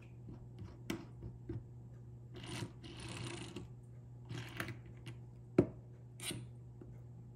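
A bearing being pressed by hand into a fidget spinner's bore: scattered light metallic clicks and a scraping rub lasting about a second, with one sharp click about five and a half seconds in. A steady low hum runs underneath.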